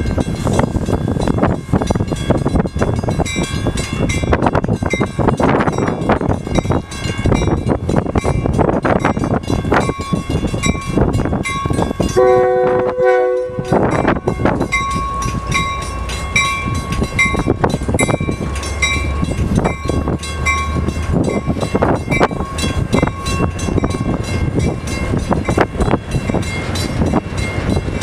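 Metra bilevel commuter train passing close by, its wheels clicking steadily over the rail joints. About halfway through, a train horn sounds one chord of about a second and a half.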